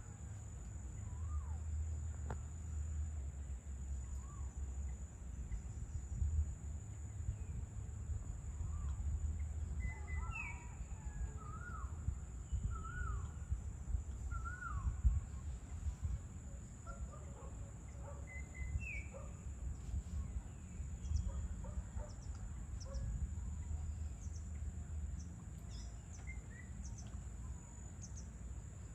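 Birds calling on and off over a steady low rumble, with a cluster of short calls about ten to fifteen seconds in and another call near twenty seconds.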